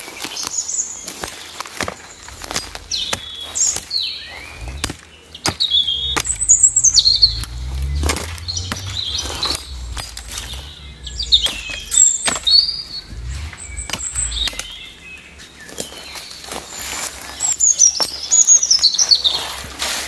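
Small hatchet chopping at a thin sapling, with irregular sharp chops and knocks of wood. Small birds chirp now and then, with short calls falling in pitch.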